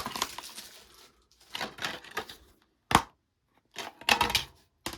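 Plastic DVD case being opened and handled, with the disc loose inside: a run of sharp plastic clicks and clattering, with one loud snap about three seconds in.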